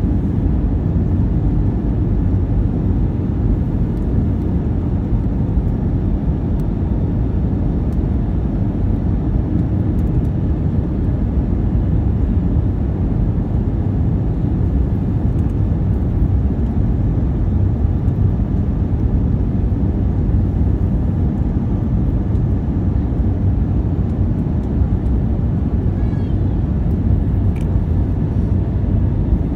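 Steady cabin noise inside an Airbus A319-132 descending to land: its IAE V2500 engines and the airflow over the fuselage, mostly low-pitched and unbroken.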